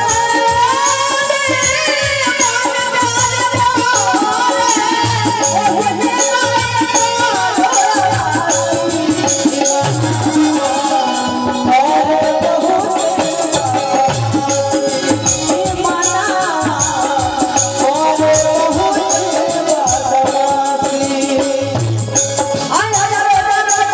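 Live Bhojpuri devotional stage music: a woman singing a bhajan through an amplified microphone over a band with a steady drum beat and a shaking rattle.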